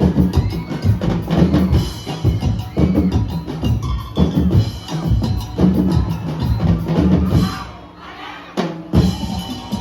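Street-dance percussion ensemble drumming, with bass drums, snares and wood-block clicks in a fast, driving rhythm. The playing drops away briefly about eight seconds in, then comes back with a single loud hit.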